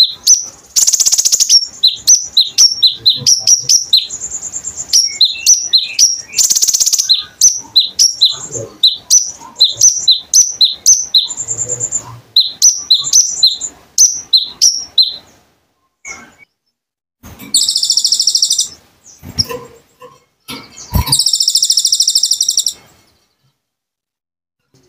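Kolibri ninja (konin) sunbird singing a rapid series of sharp, high chirps, several a second. The chirps are broken by dense, buzzy rattling trills of about a second each, the loud 'tembakan' bursts prized in a gacor bird.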